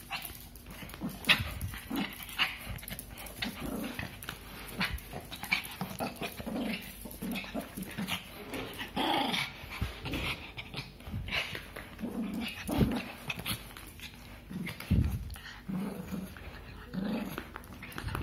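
Small dog growling in play while biting and tugging at a padded motorcycle glove on a person's hand, with short scuffling and clicking noises from the struggle throughout.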